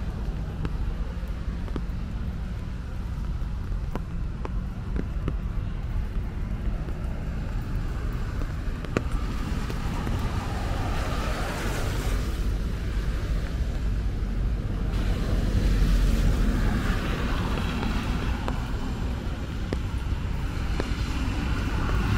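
Street traffic on a wet road: steady low rumble, with two cars hissing past, the first about halfway through and the second soon after.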